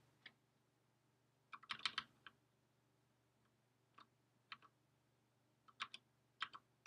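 Faint, sparse computer keyboard keystrokes: a short run of taps about two seconds in, then single taps every second or so, with near silence between them.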